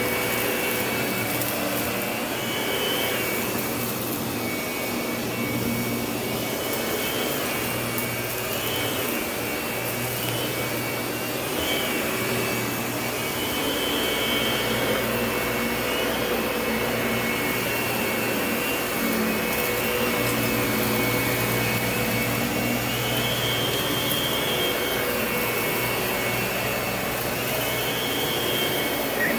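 Lindhaus vacuum cleaner running steadily, its high whine briefly rising in pitch and falling back every few seconds.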